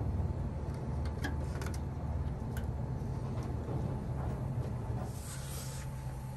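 Steady low hum of background noise with a few faint clicks and taps.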